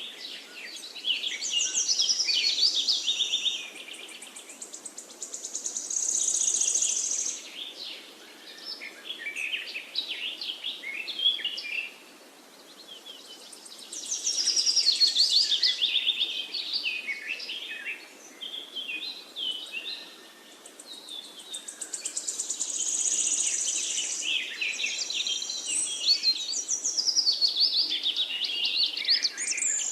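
Birds singing: many rapid high-pitched chirps and trills coming in bursts of a few seconds with short lulls between.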